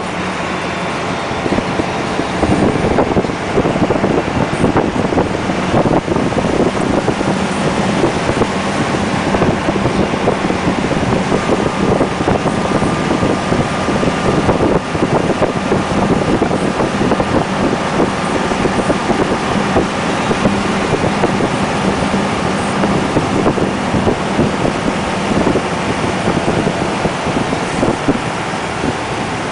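Loaded UD Quon heavy dump truck climbing uphill at full throttle: the diesel engine running hard under load with a steady drone.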